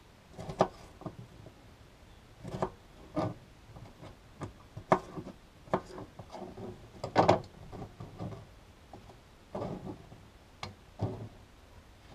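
Kitchen knife slicing cucumber on a plastic cutting board: a dozen or so irregular knocks of the blade striking the board, some with a short scrape.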